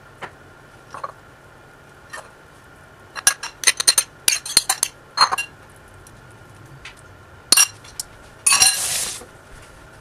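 A utensil clinking against a ceramic bowl while scooping food out: scattered sharp clinks bunched together in the middle, then a short scrape near the end.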